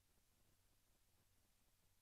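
Near silence: faint hiss with a low steady hum.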